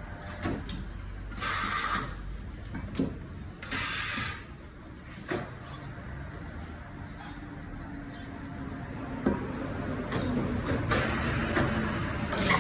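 Tyre-change work with compressed-air tools: two short hisses of air a couple of seconds apart, a longer hiss near the end, and scattered knocks and clicks of tools.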